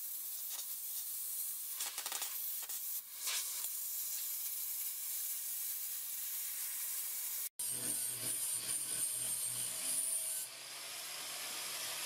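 Hand-held plasma cutter hissing as it cuts a circle out of steel sheet. After an abrupt break about seven and a half seconds in, an angle grinder's motor runs with a steady high whine and a low hum.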